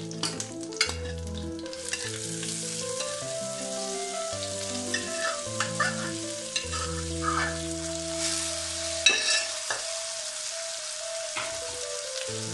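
Boiled brown chickpeas sizzling in a hot coconut-oil tempering of mustard seeds, ginger, red chillies and curry leaves as they are stirred in a kadai, with the spoon scraping and knocking on the pan, loudest about nine seconds in.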